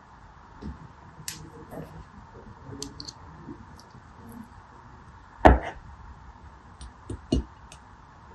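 Gel water beads being handled with a thin hand tool over a plastic tray: scattered small clicks and taps, one much louder sudden knock about two-thirds of the way in, and two smaller knocks near the end.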